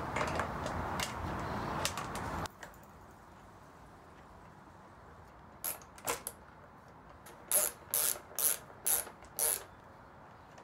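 Rustling, scraping handling noise for about two and a half seconds, then, after a pause, a run of about eight short ratchet strokes as a hand ratchet tightens a fastener on a motorcycle fairing mount.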